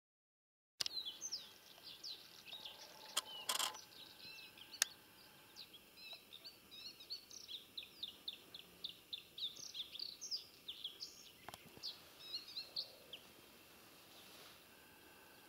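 Small songbirds chirping and twittering in a dense run of quick high notes, starting after about a second of silence and thinning out near the end. A few sharp clicks stand out, the loudest about three and a half and five seconds in.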